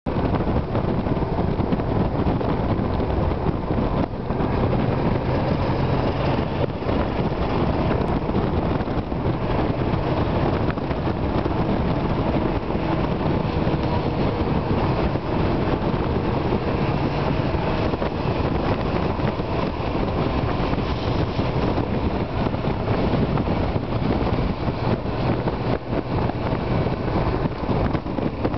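Steady rush of wind and road noise from a vehicle on the move, with an engine running underneath at an even pace.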